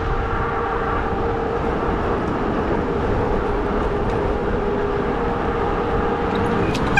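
Modded fat-tire e-bike riding at steady speed: a constant motor whine over the rumble of the wide tyres and wind on the microphone, with a couple of light clicks near the end.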